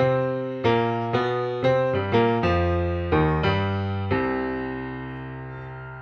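Background music: a slow piano melody, notes struck about twice a second, ending on a long chord that fades out from about four seconds in.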